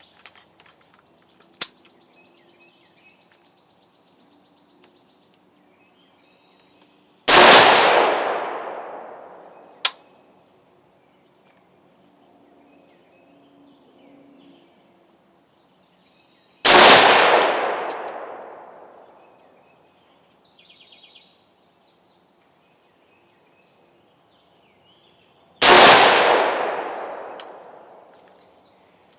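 Three rifle shots from a Head Down HD15 AR-15-type rifle firing .223 rounds, about nine seconds apart, each ringing out and fading over a couple of seconds.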